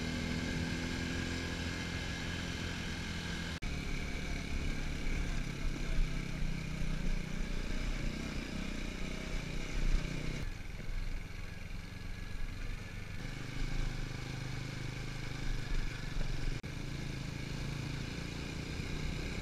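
Motorcycle engine of a TVS Apache 200 4V running while the bike is ridden, heard from the rider's position with wind and road noise. The sound changes abruptly about four seconds in and again near the end, where shots are spliced together.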